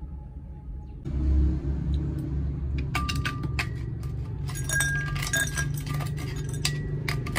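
Ice cubes poured from a container into an empty drinking glass, clattering and clinking against the glass from about three seconds in. A low rumble runs underneath from about a second in.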